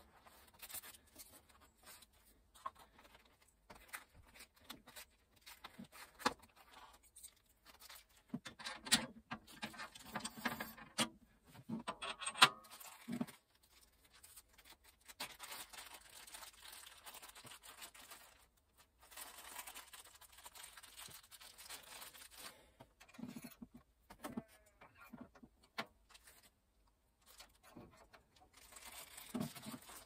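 Small parts clicking and knocking as they are handled, with a plastic bag rustling for several seconds in the middle.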